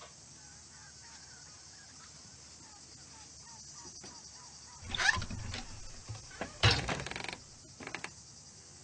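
Farmyard ambience: faint small bird chirps over a steady high hiss, then two louder bursts of chicken squawking about five and seven seconds in.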